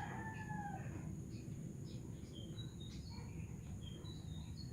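A drawn-out bird call fading out about a second in, followed by scattered faint short high chirps over a low steady background hum.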